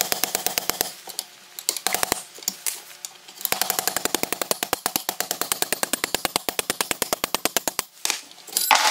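Rapid, even metallic clicking, about ten clicks a second, as a long steel pin is slid through the grates of an outboard jet shoe. The clicking thins out for a couple of seconds after the first second, and there is a louder noise near the end.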